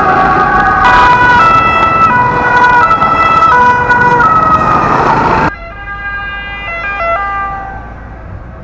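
Loud two-tone emergency siren alternating between a high and a low note, with traffic noise under it. After a sudden cut about five and a half seconds in, a quieter two-tone ambulance siren is heard and fades away, leaving traffic noise.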